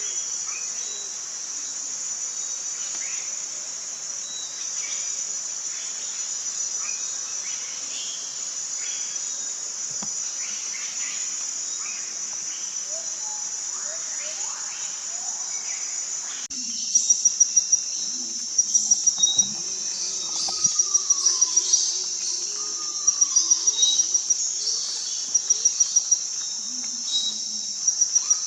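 Rainforest insect chorus: a steady high-pitched shrill, joined a little past halfway by louder pulsing insect trills that come in repeated bursts a second or two apart. A few short descending bird whistles sound over it.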